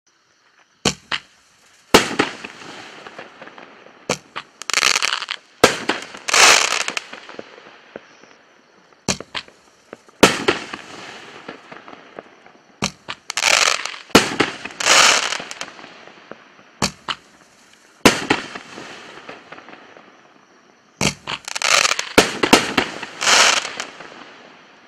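Bright Star 'Breaking Bad' BS8001 consumer firework going off in volleys of sharp bangs, some about a second apart, with longer bursts that each trail off into fading crackle. There are short lulls between the volleys.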